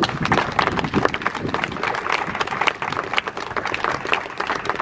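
An audience applauding: many hands clapping at once in a dense, uneven patter.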